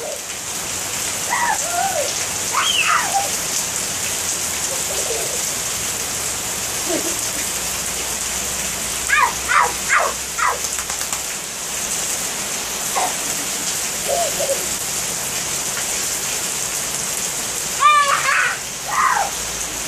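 Heavy rain falling steadily on wet pavement, an even hiss. A young child's short high-pitched calls come over it now and then, with a quick run of four about ten seconds in and more near the end.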